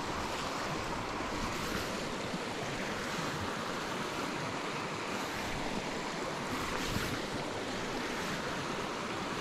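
Steady rushing of a small mountain creek running over rocks and riffles.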